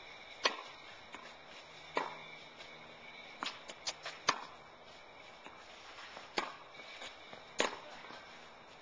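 Tennis rackets hitting a ball, with the ball bouncing on a clay court: a series of about eight sharp pops spread over several seconds, a tight cluster of them in the middle.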